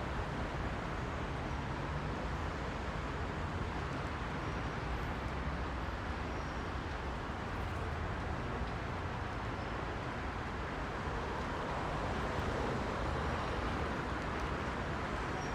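Heavy rush-hour road traffic: a steady wash of many car engines and tyre noise, swelling slightly near the end.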